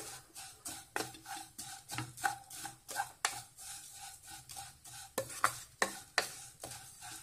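Wooden spatula scraping and knocking against a nonstick pan, stirring vermicelli and cashew nuts frying in ghee. The strokes come in a steady run of about three a second.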